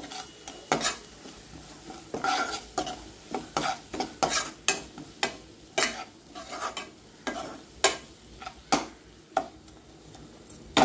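Steel spatula stirring and scraping onions with green chilli-garlic paste around a non-stick kadhai, an irregular run of scrapes about one or two a second over a faint sizzle of the oil.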